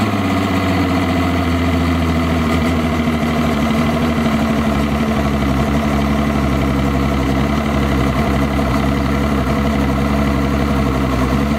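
A 2004 Mercury OptiMax 200-hp V6 two-stroke outboard idling steadily on a brief test run after a new water pump was fitted.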